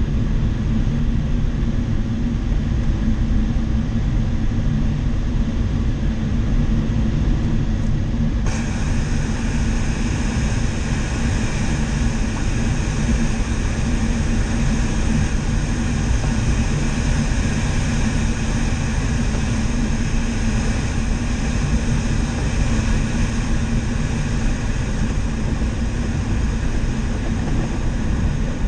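Steady rush of air around a glider's cockpit on final approach and landing, heavy in the low end. About eight seconds in, a sharper hiss joins suddenly and stays.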